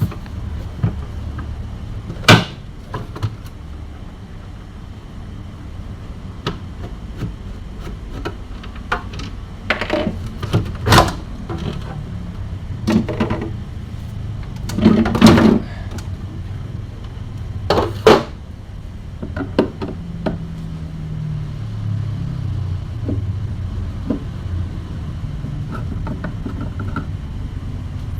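Irregular sharp clicks, knocks and rattles of plastic and metal parts as a refrigerator's freezer compartment is taken apart with tools, with a busy stretch around the middle, over a steady low rumble.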